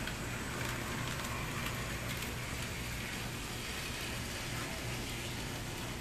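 N-scale model trams running on the layout: a steady low electric hum under a light hiss, with a few faint clicks in the first couple of seconds.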